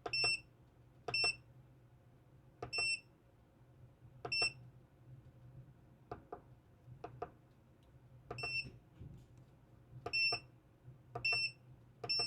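Digital force gauge beeping as its buttons are pressed to step through its unit settings: about eight short, high beeps at irregular intervals, each with a button click, and a couple of clicks without a beep in the middle.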